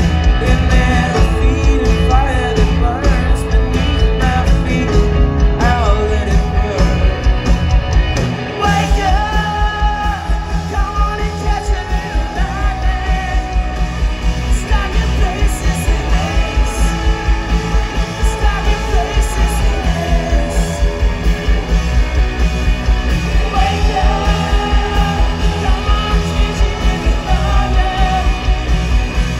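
Live rock band playing: a male lead singer singing over electric guitar, bass guitar and drums, with a steady beat.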